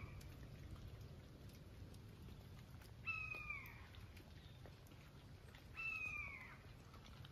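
Faint, high mewing calls, two of them about three seconds apart, each falling slightly in pitch.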